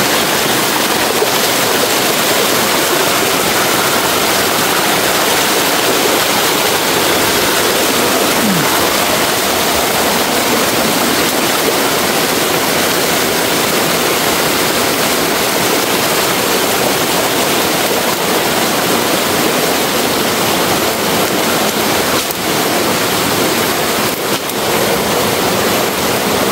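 Steady rush of a forest stream: running water making an even, unbroken hiss.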